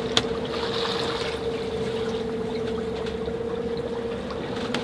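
Oceanvolt electric saildrive motor running steadily at about 930 rpm under a load of roughly 1 kW, a constant two-note hum, over the wash of water and wind along the hull.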